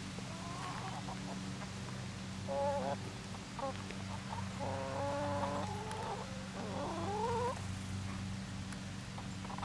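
Domestic hens giving several drawn-out, wavering calls, loudest about two and a half seconds in and again near seven seconds in, over a steady low hum.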